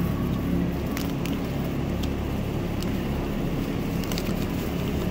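Shopping cart being pushed along a smooth store floor: a steady low rumble from its wheels, with a few light clicks and rattles from the cart.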